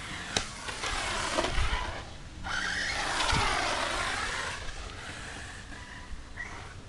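Electric 1/8-scale RC buggy with a brushless 1100 kV motor on a Xerun 150A speed controller, whining in two runs of about two seconds each as it is driven hard. Its pitch rises and falls with the throttle, and there is a sharp click about half a second in. The sound dies down after about five seconds.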